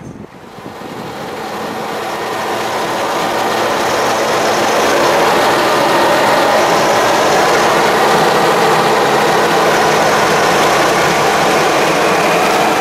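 Heritage mainline diesel-electric locomotive passing close by with a passenger train. Its engine sound builds over the first few seconds, then holds loud and steady along with the rumble of the coaches on the rails.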